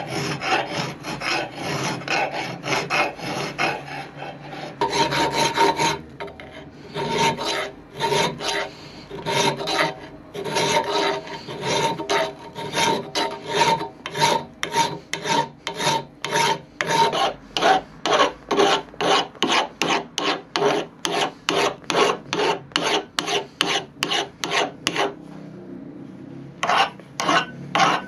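Hand file rasping back and forth across a slotted steel crossguard held in a vise, in steady strokes about two to three a second. The steel rings faintly under the file through the middle stretch. The strokes pause briefly near the end and then resume.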